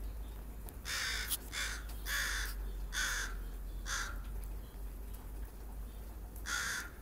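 Crow cawing: five harsh caws about two-thirds of a second apart, then a pause and one more caw near the end.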